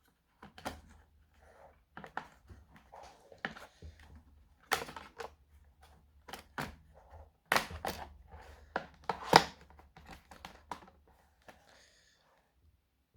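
Irregular clicks and knocks from handling and reassembling a laptop's plastic case and parts by hand, with a few louder knocks among them.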